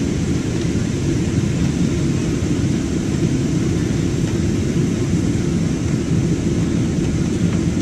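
A jet airliner's engines and airflow during takeoff and climb-out: a steady, even low rumble with a fainter hiss above it.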